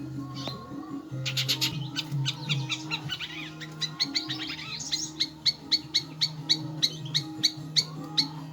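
Long-tailed shrike (cendet) song: a dense run of rapid, varied chirps from about a second in, then from about five seconds a string of sharp calls repeated evenly, about three a second. A steady low drone runs underneath.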